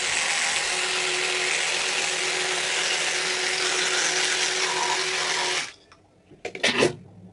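An electric toothbrush buzzing steadily in the mouth while brushing teeth with braces: a constant motor hum under the scrubbing hiss of the bristles. It switches off abruptly about five and a half seconds in, and a few short sounds follow.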